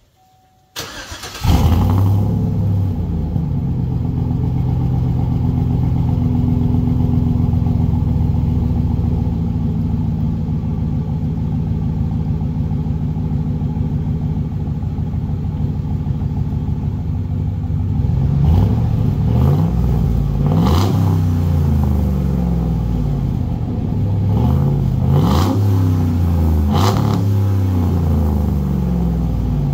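Dually pickup truck engine started through Black Widow Angry Housewife mufflers on dual exhaust pipes. It catches about a second in and idles steadily with a deep exhaust note, then is revved several times in the last ten seconds, each rev rising and falling.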